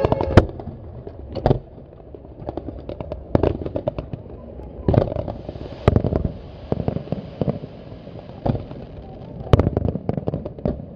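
Aerial fireworks going off: shells and comets bursting in sharp bangs at irregular intervals, one to three a second, with a hiss of sparks under the bangs from about five seconds in.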